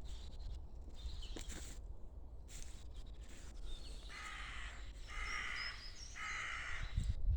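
A crow cawing three times, about a second apart, with thin high chirps of smaller birds around the calls.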